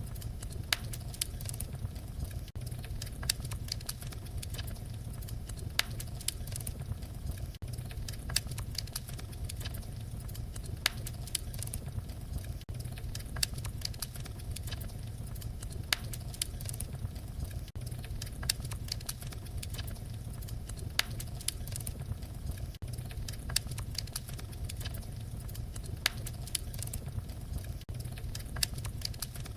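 Wood fire crackling: irregular sharp snaps and pops, several a second, over a steady low rumble of burning.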